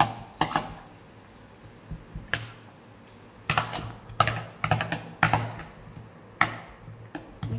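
A spoon clicking and knocking against a bowl as salad is stirred: irregular taps, bunched together in the middle.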